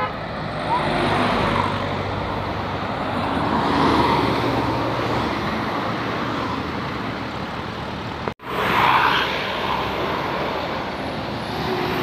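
Road traffic: tour buses and cars passing close by, steady engine hum and tyre noise swelling as each vehicle goes past. A sudden brief dropout comes about eight seconds in.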